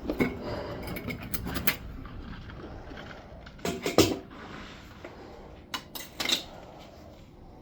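Metal foundry tools clinking and knocking as they are handled, in several short clusters of clanks, the loudest about four seconds in.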